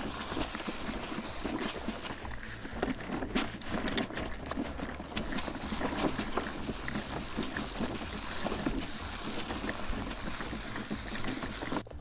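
Steady outdoor background noise, an even rushing haze with a few faint clicks, which drops away abruptly just before the end.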